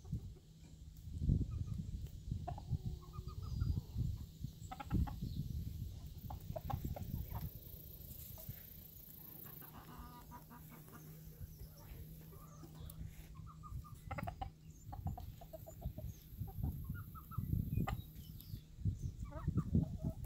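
Backyard chickens clucking in short, scattered calls as they forage, over bursts of low rumbling noise.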